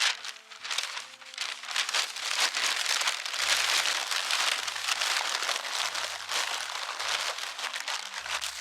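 Crinkling and rustling of newspaper and aluminium foil being wrapped around a large sweet potato for baking in the fire, a dense crackly sound throughout, over background music with low held notes.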